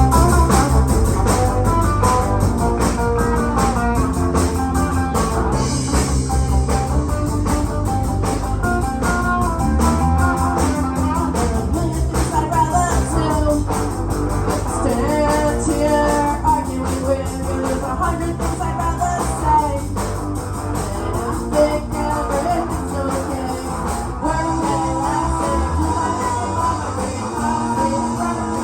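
Rock band playing a song live and loud: electric guitar over bass and drums.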